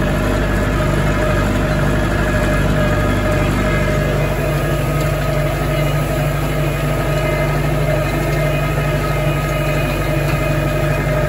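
Massey Ferguson tractor engine running at a steady, even speed.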